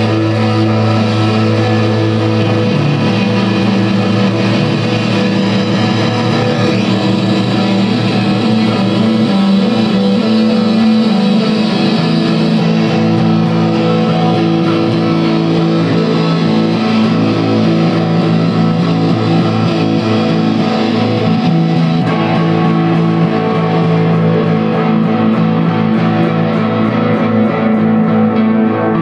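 Electric guitar music made of long, held, droning notes whose pitches shift every few seconds over a steady, dense wash.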